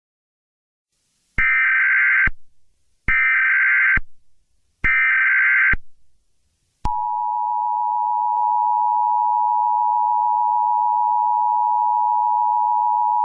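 Emergency Alert System tones: three short bursts of the SAME digital header's data screech, about a second each, then the steady two-tone attention signal starting about seven seconds in and holding. This sequence marks the start of an emergency alert.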